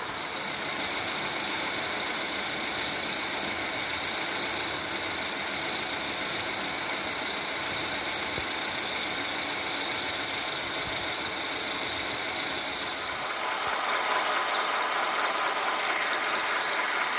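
Roundhouse Engineering Taliesin 16mm-scale live steam locomotive running on a rolling road: fast, steady exhaust beats under a strong steam hiss. About thirteen seconds in, the hiss eases and the sound turns duller.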